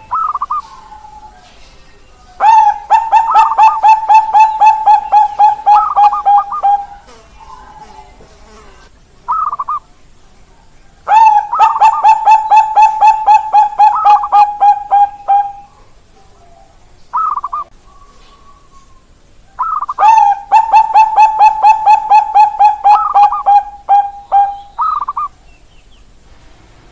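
Zebra dove (Bangkok perkutut) singing its cooing song: three long bouts of rapid staccato coos, about five a second, with short single calls between the bouts.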